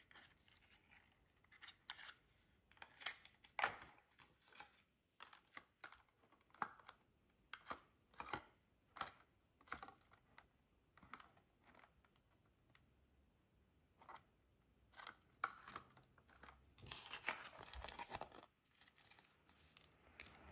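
Small cosmetic packaging handled close by: irregular clicks and taps of cardboard and plastic, with a longer stretch of plastic crinkling near the end.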